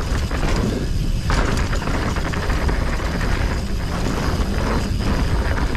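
Mountain bike descending a dry dirt trail: wind noise on the ride camera's microphone over the knobby tyres running on dirt, dropping briefly a few times.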